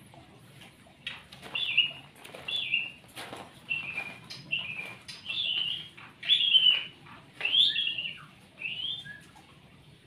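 Yellow-vented bulbul calling: a series of about ten short, bright notes that slide downward, roughly one a second.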